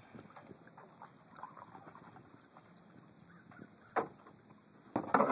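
A canoe bumping against a fibreglass sailboat's hull: faint small clicks, then one sharp knock about four seconds in and a short clatter of louder knocks near the end.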